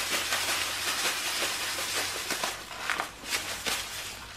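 Plastic bags crinkling and rustling in the hands as breadcrumbs are shaken out of their bag into a zip-top bag, a steady irregular crackle.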